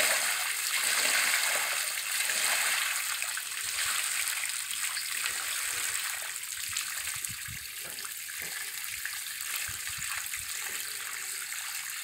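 Milky cassava wash water pouring steadily over the edge of a metal trough and splashing onto the ground, a continuous rushing splatter that eases off slightly toward the end.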